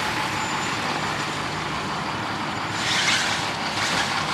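Mercedes-Benz convertible pulling away at low speed: steady engine and tyre noise over background traffic, with a short hissing burst about three seconds in.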